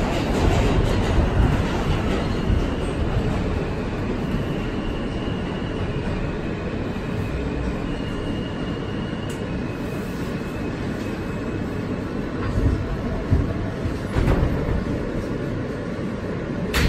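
Inside an R160 subway car as it brakes into a station: steady rumble of steel wheels on rail, with a faint high whine through the middle and a few knocks near the end.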